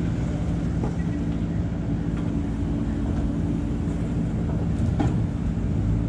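JCB 3DX backhoe loader's diesel engine running steadily as the loaded bucket swings over to the truck, with a couple of faint knocks.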